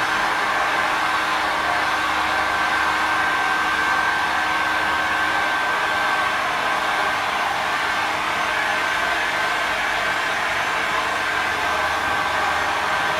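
Electric heat gun blowing hot air steadily, a continuous rushing hiss with a faint high whine, used to dry plastic body filler quickly.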